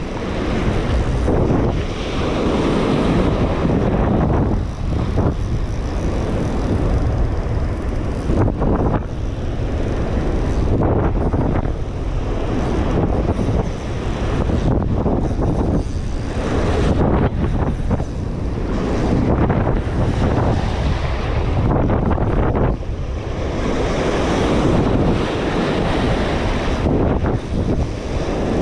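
Strong, gusty wind buffeting the microphone, swelling and easing every few seconds, with surf washing underneath.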